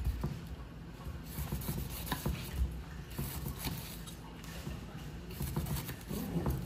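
Large kitchen knife slicing the rind off a whole pineapple on a wooden chopping block: irregular crunches, scrapes and light taps of the blade against the wood, with a thud at the start.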